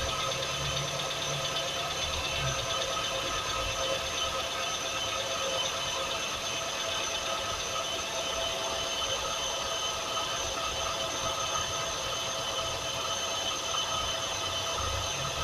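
2006 Hyundai Tucson engine idling cold, with steady high-pitched whining tones from the engine over the low running sound: extraneous noise that comes from the engine when cold and fades as it warms up.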